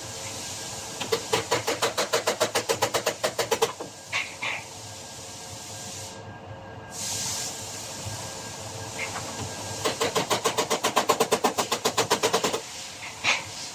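Body hammer tapping out minor damage in a sheet-metal panel against a dolly: two runs of quick, even blows, about nine a second and each nearly three seconds long, with a few single taps between them. A steady hiss runs underneath.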